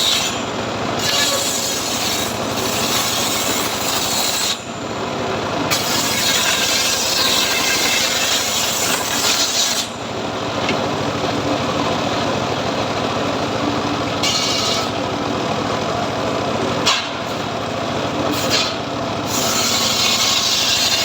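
Homemade sawmill saw cutting through teak wood: a continuous rasping cut, with brief dips in the cutting noise about four and a half and ten seconds in.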